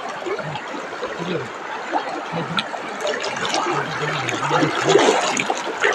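Waterfall water rushing close by, a steady loud rush.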